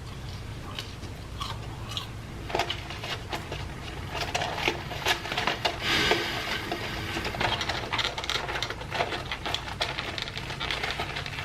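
Close-miked eating: a person chewing and smacking on fried cheese curds, with many small irregular clicks, wet squishes and light rustles, over a steady low hum.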